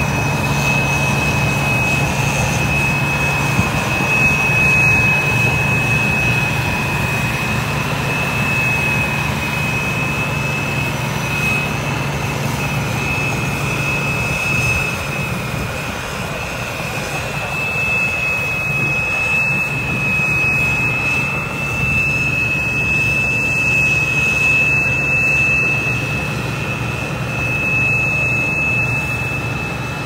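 New Holland Clayson combine harvester running while harvesting rice: a steady engine drone with a constant high-pitched whine over it, growing a little fainter in the second half as the machine moves away.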